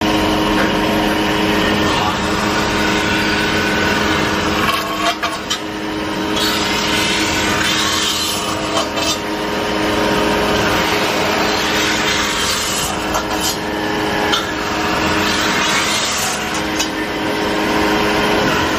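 CNC metal-spinning lathe running with a steady motor hum while its forming roller presses a spinning copper disc over the mandrel. The roller makes a rough rubbing and scraping noise that swells and eases several times.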